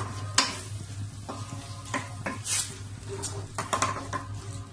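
Wooden spoon stirring minced chicken in a stainless steel pot: irregular knocks and scrapes of the spoon against the pot over the sizzle of the meat frying.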